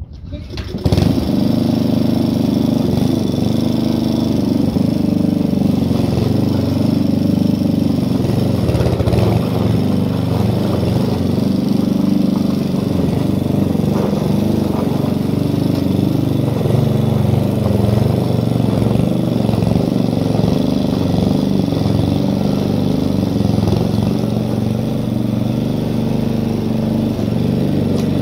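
Petrol lawn mower pull-started, its engine catching within the first second, then running steadily while cutting grass.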